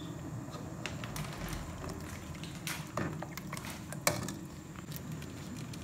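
Hot-pot broth bubbling in a large stainless steel pot, with a few light clicks of a metal ladle against the pot.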